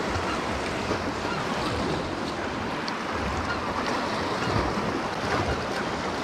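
Sea swell washing and breaking against the rocks, a steady rush of surf, with wind buffeting the microphone.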